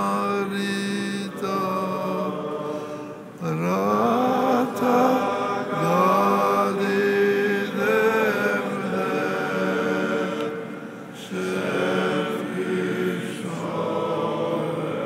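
Choral chant: several voices sing a slow melody over a long-held low drone note, with a rising slide a few seconds in.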